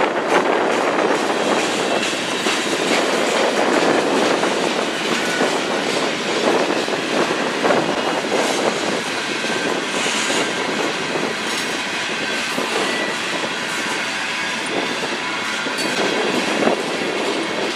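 Freight train of covered hopper cars rolling past, a steady rumble and clatter of steel wheels on the rails.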